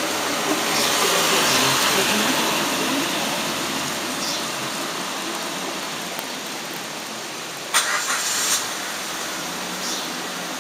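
A car's engine running close by, swelling over the first couple of seconds and then slowly fading as it moves off. Two short sharp knocks come about eight seconds in.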